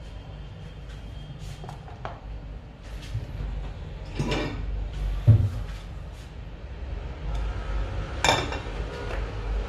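Kitchen clatter: cookware and utensils being handled and set down in a series of clicks and knocks, with a heavy thump about five seconds in and a sharper clatter near the end, over a steady low hum.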